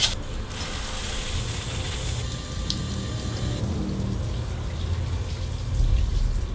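Shower water spraying and splashing in a bathtub, strongest in the first two seconds, over background music. There is a sharp click at the very start.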